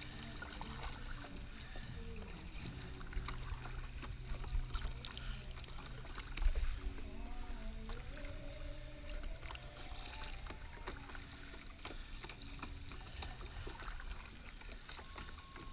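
Kayak paddling: paddle blades dipping, with water splashing and dripping in short irregular bursts over a steady low rumble.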